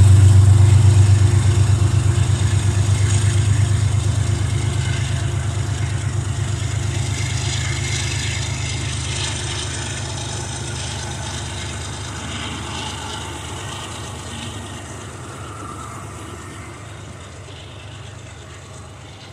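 Departing Amtrak passenger train, its coaches rolling past on the rails with a low diesel engine hum and a fast rhythmic wheel clatter. The whole sound fades steadily as the train pulls away.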